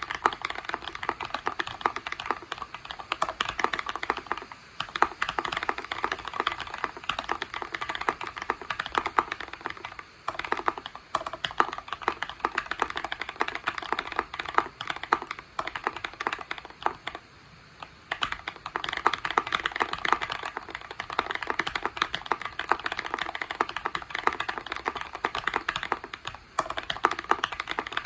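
Continuous fast typing on a Tofu60 60% mechanical keyboard built with a brass plate and a PE foam mod. The keystrokes run as a dense stream of clicks, broken by a few brief pauses.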